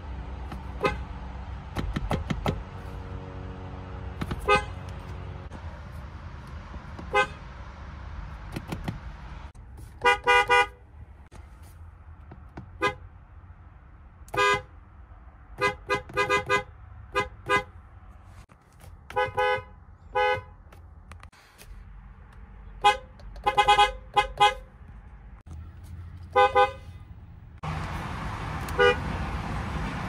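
Lexus car horns sounded in short taps: single toots and quick clusters of two to four, from several different cars one after another. Each toot is a brief pitched blare.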